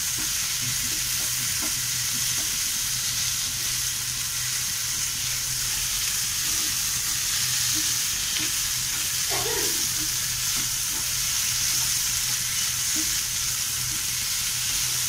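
Paneer bhurji of onion, capsicum, tomato and crumbled paneer sizzling steadily on high flame in a nonstick pan, stirred and scraped around with a spatula.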